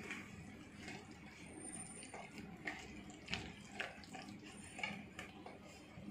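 Red silicone spatula stirring a thick wet batter of semolina, paneer and curd in a stainless-steel mixer jar: irregular squelchy scrapes with light knocks of the spatula against the steel, a few sharper ones in the middle.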